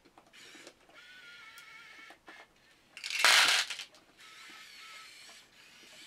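Small electric motors and gearboxes of a 1/50 radio-controlled Komatsu PC1250-8 excavator model whining in short runs as its functions are worked. A louder, harsh burst about three seconds in lasts under a second.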